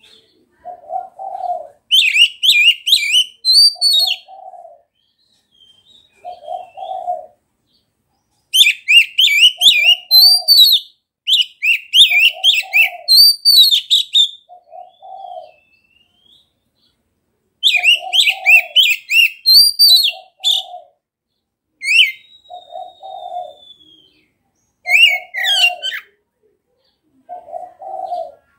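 Oriental magpie-robin (kacer) singing in full voice: loud bursts of rapid, varied whistled and chattering phrases, each a few seconds long, with short pauses between. A lower, short burbling call repeats about every second or so underneath.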